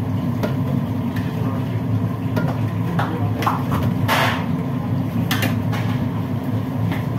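Steady low drone of commercial kitchen machinery, with scattered knocks and clatter of utensils and trays and a brief rushing noise about four seconds in.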